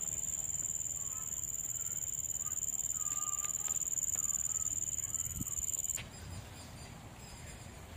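Insects trilling in one steady high-pitched drone, with a few faint bird chirps. The drone cuts off abruptly about six seconds in, leaving quieter outdoor background.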